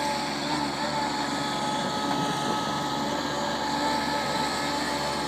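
Engine of a small articulated loader working a log grapple, running steadily with a constant drone and a thin high whine.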